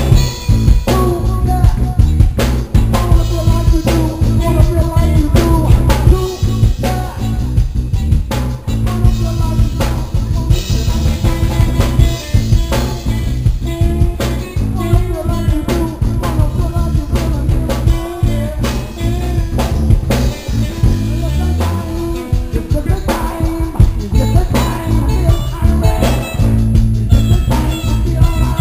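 A live reggae band plays on drum kit and electric guitar, with a rising slide in the low end a little past two-thirds of the way through.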